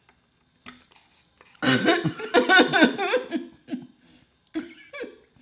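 A person's loud vocal outburst, about a second and a half long, starting a little way in, followed by a few short vocal sounds.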